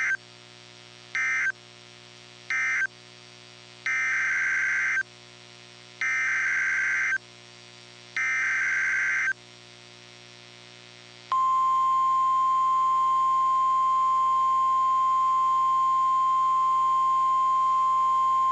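NOAA Weather Radio emergency alert data tones. Three short bursts of shrill digital tones (the end-of-message code of the previous tornado warning) are followed by three longer bursts about two seconds apart (the coded header of the next warning). About eleven seconds in, the steady single-pitch 1050 Hz warning alarm tone begins and holds.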